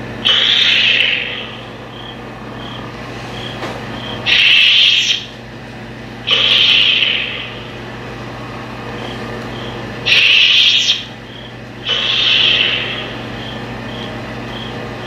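Electronic lightsaber sound board humming steadily through the hilt's speaker, with five whooshing swing sounds, each about a second long, as the lit blade is swung.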